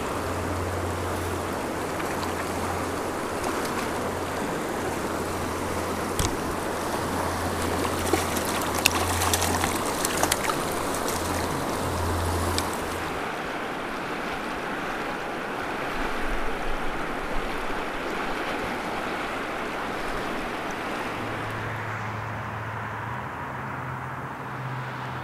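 Rushing river current running over rocks, a steady wash of water, with a few brief sharp splashes in the first half. The water sound softens after about thirteen seconds.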